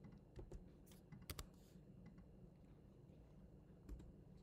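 Faint computer keyboard typing: a handful of scattered keystrokes in the first second and a half, a pause, then another keystroke or two near the end.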